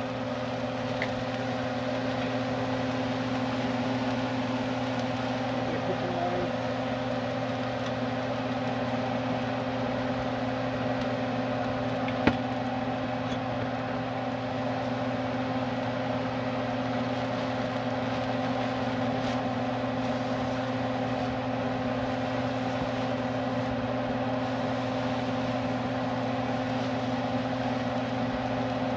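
Steady motor hum with a few fixed low tones over an even rushing noise, broken once by a sharp click about twelve seconds in.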